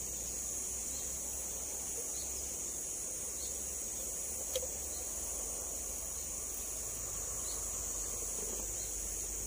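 Steady insect chorus: a constant high buzz with a regular pulse a little under twice a second, and a faint chirp about once a second. A single small click comes about halfway through.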